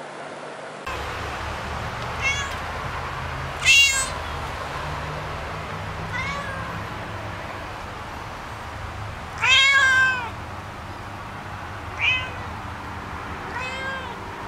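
Domestic cat meowing repeatedly: six meows spaced a couple of seconds apart, a short high one about four seconds in and the longest, loudest one near ten seconds, over a steady low hum.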